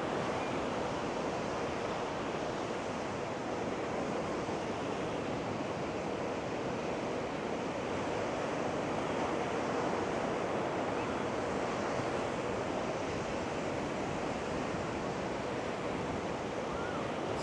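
Steady rush of ocean surf on a beach, with wind blowing across the microphone.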